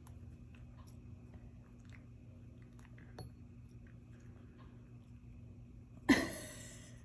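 A hand making a fake treat toss close to the phone: faint small ticks over a steady low room hum, then about six seconds in a sudden loud whoosh of air that fades over about a second.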